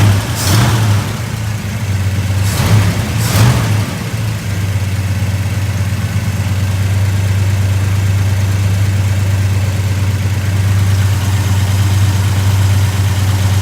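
Ford 390 V8 idling steadily on a newly fitted Holley 4160 four-barrel carburetor, its idle speed just turned down. Three short louder bursts come in the first four seconds.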